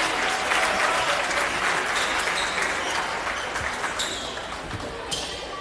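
Gym crowd applauding a made free throw. The clapping is thick at first and dies away over about four seconds.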